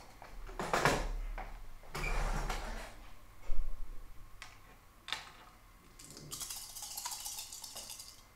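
Wooden shogi pieces clicking and sliding on a wooden board as a hand moves and gathers them, with the sharpest click about three and a half seconds in and a longer scraping rustle near the end.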